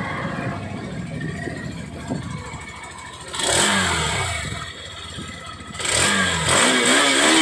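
Hero Xtreme 160R's 160cc air-cooled single-cylinder engine idling at the exhaust, then revved twice. The first is a short blip about three and a half seconds in; the second, longer rev near the end climbs in pitch and holds high.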